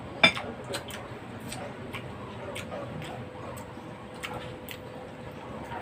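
Irregular light clicks and taps from people eating, with one louder click just after the start.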